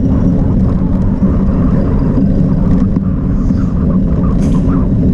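Wind rushing over an onboard action camera's microphone as a cyclocross bike is ridden fast across grass: a steady, loud, low rumble.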